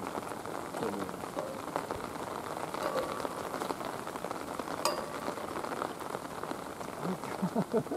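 Steady rain falling and dripping, a dense patter of small drops, with one sharp click about five seconds in.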